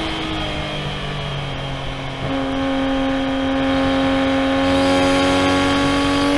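Toyota A90 Supra's B58 turbocharged 3.0-litre straight-six engine at light load, easing off for the first couple of seconds. About two seconds in it comes back on the throttle and pulls steadily, its pitch rising slowly.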